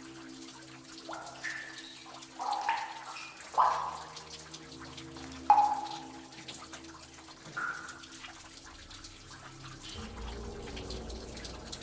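Water in a shallow cave stream plopping and splashing: about five sharp, short plops over the first eight seconds.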